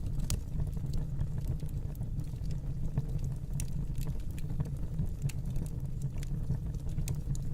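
Wood fire crackling: a steady low rumble of flames with irregular sharp pops and snaps, several a second.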